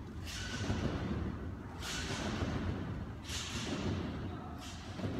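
Trampoline bed and springs taking a jumper's bounces: a short thudding swish four times, about every second and a half, over a steady low hum.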